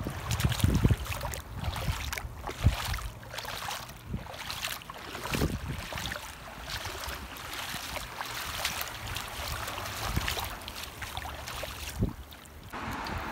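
Wind buffeting the microphone with the wash of the sea at the shoreline, a rough rumble broken by many irregular gusts and knocks.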